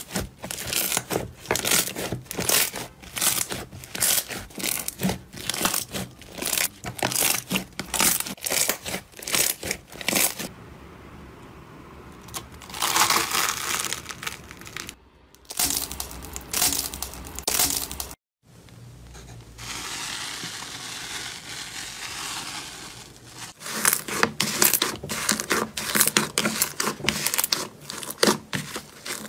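Slime being squeezed and worked by hand: a rapid, dense run of crackles and pops, with a smoother squishing stretch in the middle.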